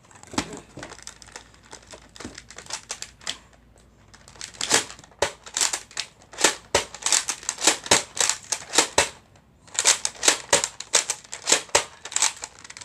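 Plastic packaging crinkling and crunching as it is handled, in a quick series of short, sharp bursts.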